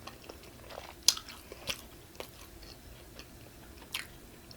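Close-miked chewing of pizza: scattered wet mouth clicks and smacks, the loudest about a second in.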